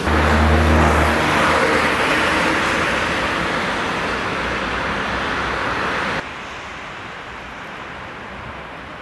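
Street traffic: a vehicle's low engine hum for about a second, then a broad rush of road noise that slowly fades. About six seconds in it drops suddenly to a quieter steady traffic hum.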